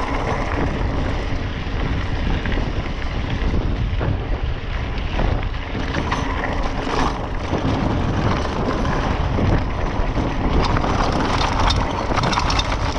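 Scott Spark 29er full-suspension mountain bike riding fast over a dirt and gravel track: tyres crunching over stones and wind rushing on the microphone. Rattling clicks and knocks from the bike grow denser near the end as the trail turns rocky.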